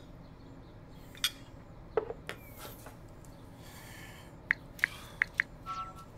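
Cutlery clinking against ceramic plates at a breakfast table, with a quick run of four short ringing clinks about four and a half seconds in. Before them comes a soft rustle of newspaper, and near the end a short phone tone as a text message is sent.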